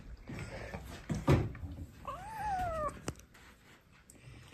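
A kitten meows once, a drawn-out meow that rises and then falls in pitch, about two seconds in. A thump comes about a second before it.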